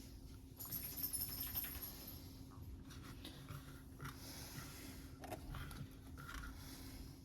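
Faint handling sounds of sliced deli turkey and ham being laid onto slider buns: soft rustles and small clicks, with a brief brighter rustle between about one and two seconds in, over a low steady hum.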